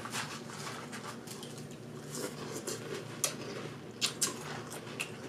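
Quiet eating sounds: spoons clicking and scraping in cereal bowls and mouths chewing cereal in milk, heard as a scattered run of small sharp clicks over a faint low hum.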